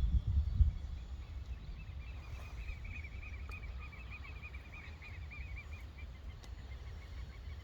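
A bird trilling, a fast run of short repeated chirps, about ten a second, lasting several seconds and fading near the end, over a low outdoor rumble. There are a few low thumps at the very start.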